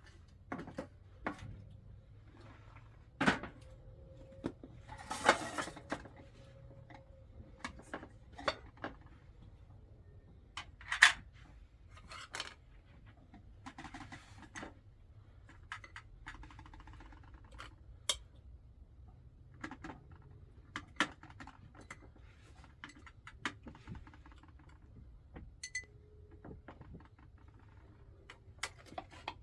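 Irregular clinks, taps and knocks of dishes and kitchen utensils being handled, with a few louder knocks, the loudest about eleven seconds in.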